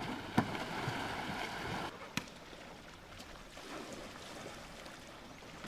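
Kayak paddles splashing and churning water, louder for the first two seconds and then quieter, with sharp knocks about half a second in and again about two seconds in.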